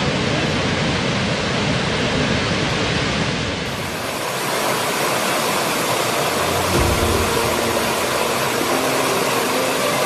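Steady rushing noise of a large waterfall, then, after a cut, a rocky stream splashing over stones. Faint music tones come in over the water in the second half.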